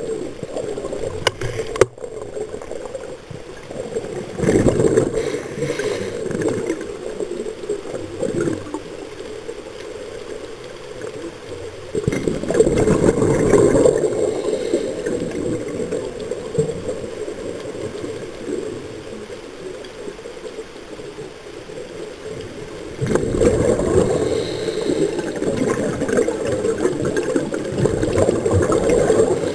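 Underwater sound from a scuba dive: a diver breathing through a regulator, with exhaled bubbles gurgling in louder stretches about 4, 12 and 23 seconds in.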